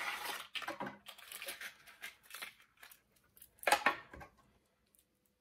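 A fishing lure's package being opened and handled by hand: scattered rustling and scraping, with a short sharp crackle about four seconds in.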